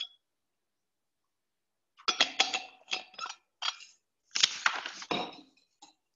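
Clinks, knocks and handling noises of a drinking vessel as someone takes a drink of water, in several short clusters starting about two seconds in.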